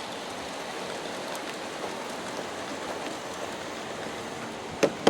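A long G-scale model coal train of plastic hopper cars rolling along track, a steady hissing rumble of many wheels on the rails, with two sharp clicks near the end.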